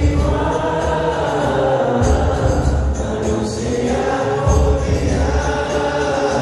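Male vocalist singing an Islamic qasidah live through a microphone and PA, with melismatic sung lines over a musical backing with a heavy bass.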